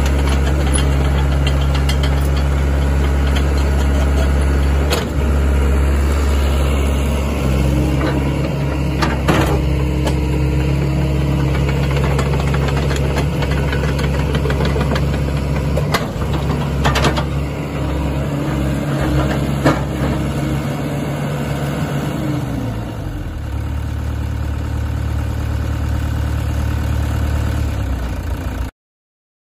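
Sany SY75C excavator's diesel engine running steadily, its pitch shifting a few times, with a few short metallic clanks; the sound cuts off suddenly near the end.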